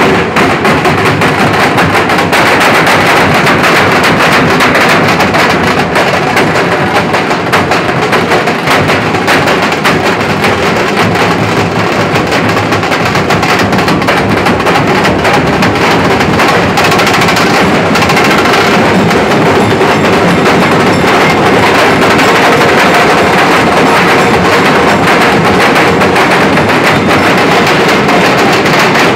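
Nashik dhol group drumming: several large dhol drums beaten at close range in a fast, dense, unbroken rhythm, very loud throughout.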